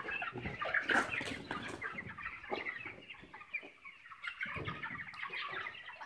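A flock of white broiler chickens clucking and cheeping, many short calls overlapping, with a few short knocks in the first two seconds.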